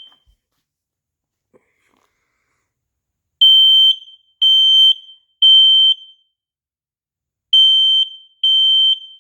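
Kidde P3010-series smoke alarm under test: a short chirp, then after about three seconds its horn sounds in the temporal-three evacuation pattern, long high-pitched beeps in groups of three with a pause between groups.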